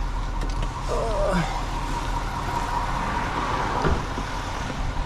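Car moving slowly with its engine running low, heard from inside the cabin: a steady low rumble with a faint steady whine above it.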